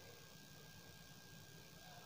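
Near silence: room tone with a faint steady hiss and a thin, faint steady high tone.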